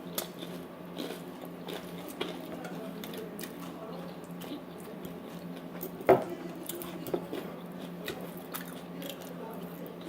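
People chewing and biting fried chicken taquitos, with scattered light clicks of cutlery and plates and one sharper click about six seconds in.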